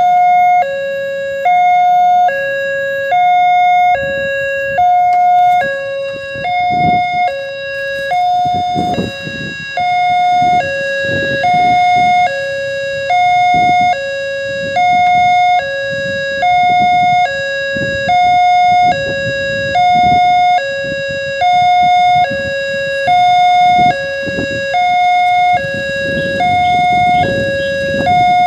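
Railway level-crossing warning alarm sounding its two-tone electronic chime, a high and a low tone alternating evenly about once a second, signalling an approaching train while the barrier is down. Road vehicles pass underneath at times.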